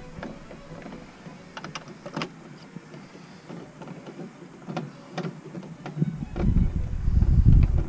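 Hands-on work noise from refitting a van's plastic door trim panel: scattered light clicks and taps of plastic and tools. About six seconds in, a louder rough rumbling noise takes over.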